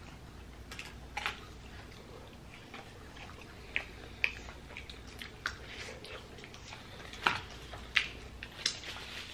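Eating and food-handling sounds: scattered light clicks and rustles from fries, sauce cups and paper food boxes, with chewing, and a few sharper clicks near the end.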